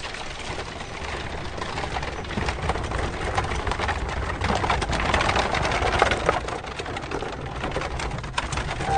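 Horse-drawn carriage rolling past: wheels rumbling and rattling over a dirt road amid many quick clatters of hooves and wood. It grows louder toward the middle and eases off near the end.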